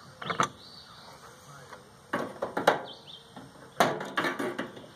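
Knocks and rattles of metal parts and hand tools while a microwave oven is taken apart, in three short clusters, with birds chirping in the background.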